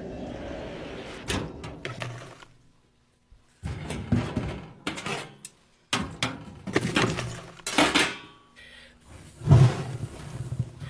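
Metal clanks and knocks at a sheet-metal wood stove as its firebox is tended, with the door handled and wood shifted among the burning embers. It comes as an irregular string of sharp clatters starting about a third of the way in, with the loudest thump near the end.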